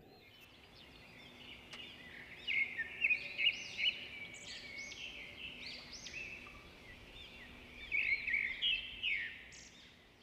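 Small birds chirping: a busy layer of short, arching calls, louder about two and a half seconds in and again near the eight-second mark.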